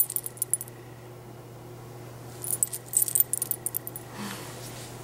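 Metal ID tags on a Jack Russell terrier's collar jingling as the dog moves: a short burst right at the start, then a longer run of jingles for about a second and a half in the middle.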